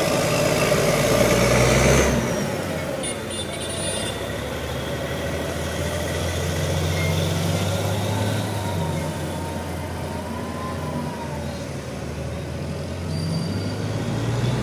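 Diesel engine of a Grove mobile crane running at low speed as the crane drives slowly, a steady low hum, louder for the first two seconds.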